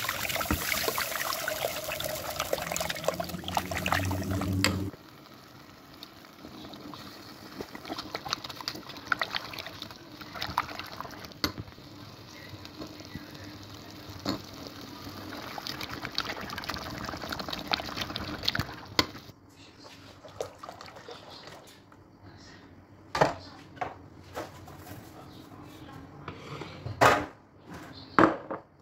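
A steady rushing hiss like running or pouring liquid, which cuts off abruptly about five seconds in. After it come quiet kitchen handling sounds: a plastic spoon scraping chicken filling onto crepes and the crepes being rolled, with a few sharp clicks and taps near the end.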